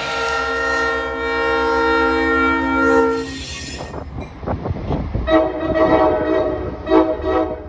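A multi-tone train air horn sounds one long steady chord for about three and a half seconds. A few knocks and rail noise follow, then the horn sounds again in several short blasts.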